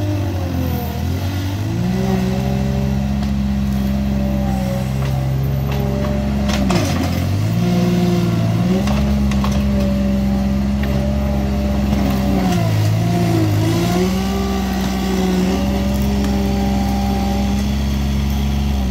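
Bobcat skid-steer loader's diesel engine working hard while its bucket shoves a large tree root ball. The engine pitch sags under load three times and recovers, with a knock about seven seconds in.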